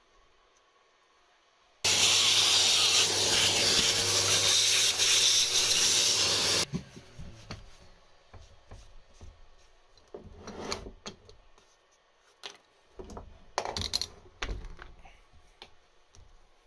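A loud, steady rush of air with a low hum under it, lasting about five seconds and cutting off suddenly. Then come scattered knocks and rubbing from metal parts being handled.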